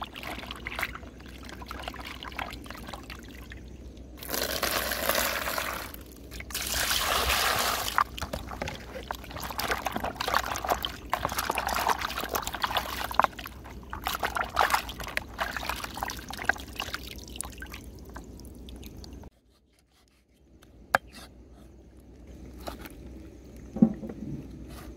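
Water poured and splashing in a plastic basin as hands scrub and rinse a plucked duck, in two long pours and then uneven sloshing surges. Near the end, a couple of sharp knocks of a cleaver on a wooden chopping board.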